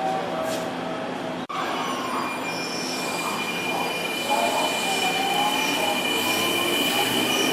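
Sanyo Electric Railway 5000 series electric train running through the station, with the noise of its wheels on the rails. About two and a half seconds in, a steady high-pitched squeal sets in and holds.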